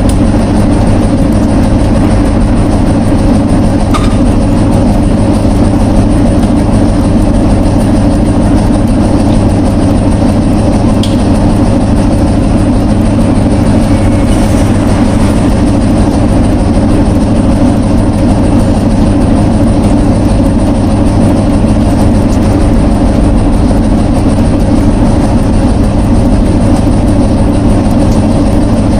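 Loud, steady, unchanging low machine-like drone, with a faint click about four seconds in and another about eleven seconds in.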